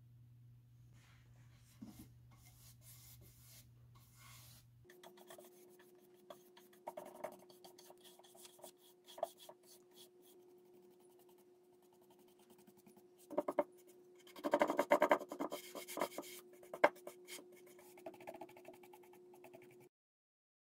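Paintbrush strokes rubbing and scraping across bare wood as primer is brushed on, coming in bursts and loudest about two-thirds of the way through, over a faint steady hum.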